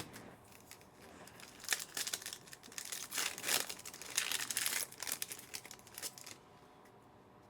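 A trading-card pack's wrapper being torn open and crinkled by hand, in a run of crackly rips and rustles lasting a few seconds, stopping about a second before the end.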